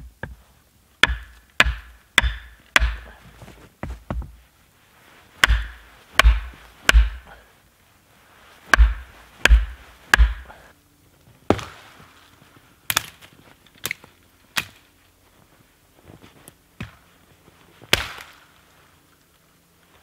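Axe striking wood: a series of about twenty sharp, irregular chops, some close together in twos and threes, growing sparser in the second half, with a last single strike near the end.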